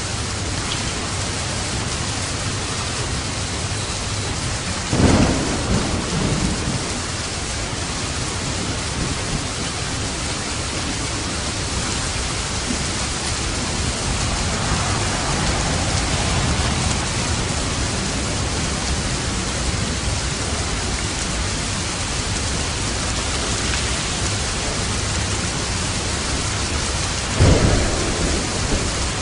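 Steady heavy rain falling. Thunder cracks sharply twice, about five seconds in and again near the end, each followed by a short rumble, with a fainter rumble in the middle.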